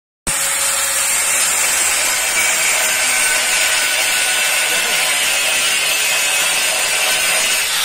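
Handheld angle grinder running steadily against the steel front crossmember of a Kia Cerato, grinding into the damaged metal with a continuous high, hissing grind.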